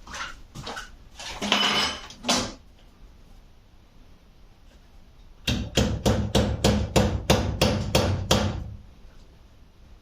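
Hammer striking a small metal rivet to set it through metal filigree: a few lighter knocks in the first couple of seconds, then about a dozen quick, sharp blows at roughly four a second, starting about five and a half seconds in.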